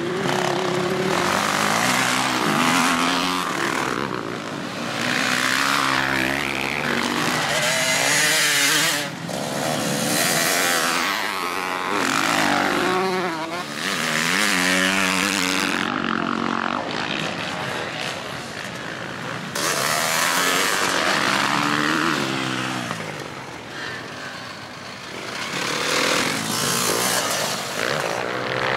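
Motocross dirt bike engines revving hard, the pitch climbing and dropping again and again as riders accelerate, shift and back off through corners and jumps, with one bike after another passing close by.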